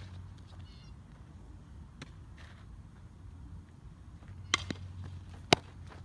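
Sharp knocks from a softball fielding drill: a faint one about two seconds in, a quick pair about four and a half seconds in, and the loudest about a second later, just as the fielder crouches for a ground ball.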